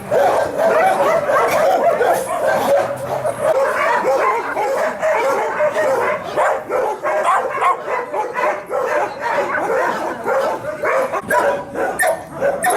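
Many shelter dogs barking at once, their calls overlapping without a break.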